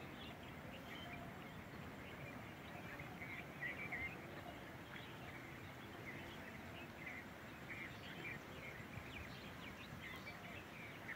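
Faint steady background ambience with many short, scattered bird chirps and calls.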